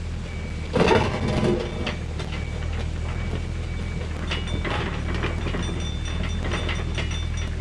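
Mini excavator's diesel engine running steadily as the machine tracks forward, pushing loose dirt with its front blade. Its tracks and undercarriage rattle and clank, with a louder burst of scraping clatter about a second in.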